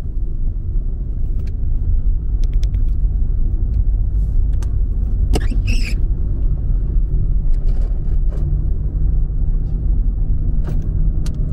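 A car's road and engine noise heard inside the cabin while it drives along a paved highway: a steady low rumble, with a few faint clicks and one brief sharper sound about halfway through.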